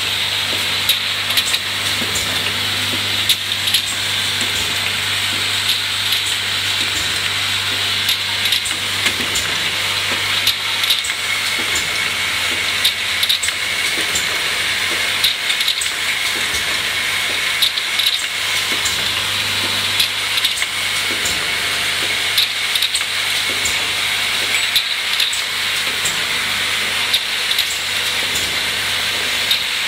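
Automatic filling and capping line for small glass dropper bottles running. It makes a steady mechanical hiss and whir over a low hum, with frequent light clicks and clinks as the bottles pass along the conveyor.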